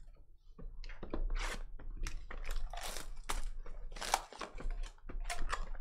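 Shrink-wrapped cardboard trading-card hobby box being handled and unwrapped: irregular crinkling and tearing of plastic film with scrapes of cardboard.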